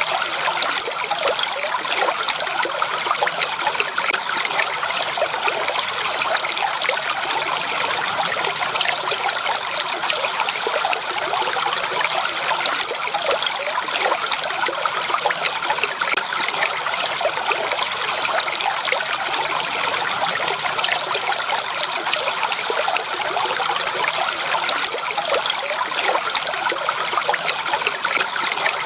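Stream water trickling and babbling steadily over stones, an even splashing rush with no breaks.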